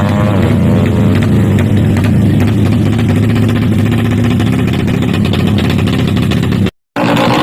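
Drag-racing motorcycle engine: a rising rev dips about half a second in, as at a gear shift, then gives way to a steady low engine note with a rough crackle. The sound drops out for a moment near the end.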